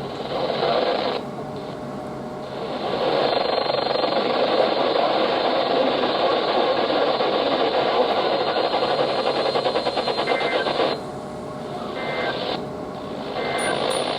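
Weather radio receiver putting out loud, steady static hiss between alert messages. Near the end come a few short, faint beeps.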